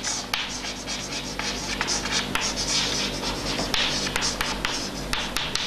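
Chalk writing on a chalkboard: a run of scratchy strokes punctuated by sharp taps as the chalk strikes the board.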